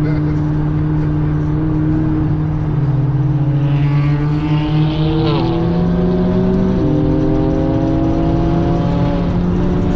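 McLaren's twin-turbo engine under hard acceleration, heard from inside the cabin: the engine note climbs steadily in pitch, then steps down at a gear change about seven seconds in and starts climbing again.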